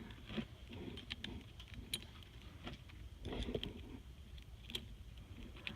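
Scattered light clicks and clinks of small metal parts and tools being handled, a few a second, over a faint low hum.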